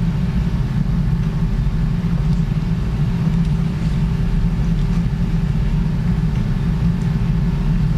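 Steady low rumbling hum with a faint constant tone above it, unchanging throughout: the running background of operating-room equipment.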